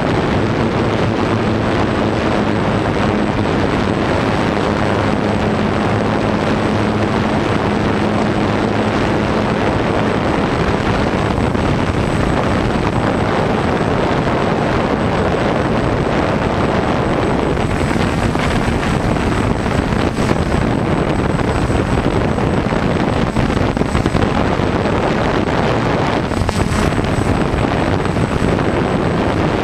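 Multirotor camera drone's electric motors and propellers running steadily, heard through its own onboard camera, with wind rushing over the microphone.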